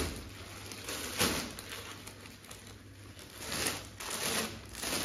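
Plastic packaging on packed dress suits crinkling and rustling as the packets are handled, in several short rustles: at the start, about a second in, and again over the last second and a half.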